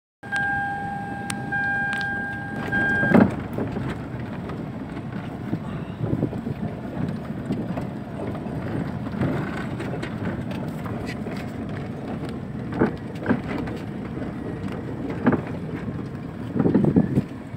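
Car cabin noise while driving over a rough dirt and sand track: a steady rumble of tyres and engine with occasional knocks and thuds as the car goes over bumps. It opens with a high steady tone lasting about three seconds, broken twice.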